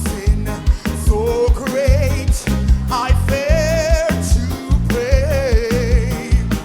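Live gospel band playing an upbeat hymn with a steady drum beat and bass, with voices singing the melody over it.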